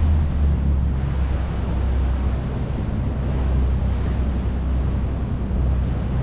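Sightseeing boat under way: its engine hums steadily and low, under wind buffeting the microphone and the rush of water along the hull.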